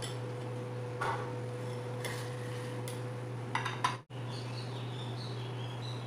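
A metal knife clinking against a plate as cake is cut and served: a light clink about a second in, then a short run of several clinks about three and a half seconds in, over a steady low hum.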